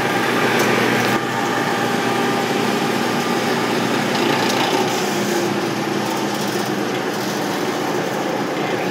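A.O. Smith Legend 2000 commercial boiler running, a steady mechanical hum with several steady tones from its induced-draft blower, firing burner and water pump. The owner reckons the pump is probably the next part to go.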